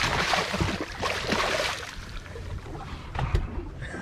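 Water splashing as a hooked summer flounder (fluke) thrashes in a landing net at the boat's side. The splashing is loudest in the first two seconds, then dies down, and there is a single knock about three seconds in.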